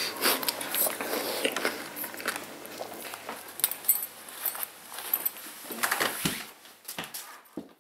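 Crunching and wrapper crinkling at first. Then cloth rustling and scattered light metallic clinks as a belt with a metal buckle is unfastened.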